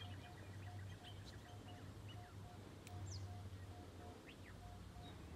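Faint birds chirping in a quiet outdoor background, with one short note repeated about three times a second and scattered brief chirps over a low steady rumble.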